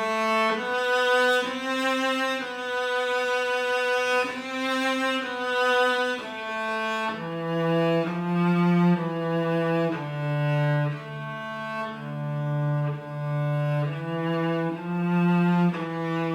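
Solo cello playing a slow, smoothly bowed melody, one note at a time, each held for about half a second to a second. The line moves into the instrument's lower register about halfway through.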